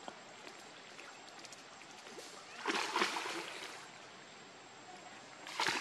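Water splashing and sloshing as a macaque swims through a shallow pool, with a loud burst of splashing about three seconds in and another short one near the end.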